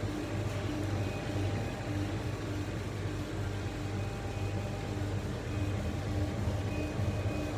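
Kamach 6090 HYPE CO2 laser cutting machine at work: a steady low hum, with short motor whines switching on and off about twice a second as the laser head moves.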